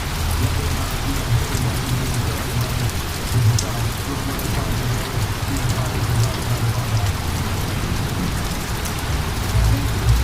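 Steady heavy rain falling, with scattered drops ticking close by and a low, uneven rumble underneath.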